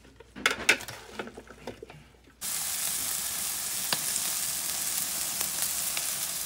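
Wooden salad servers tossing salad in a glass bowl, a few clicks and knocks. About two and a half seconds in, this cuts to a loud, steady sizzle of steaks and sausages frying on a grill grate.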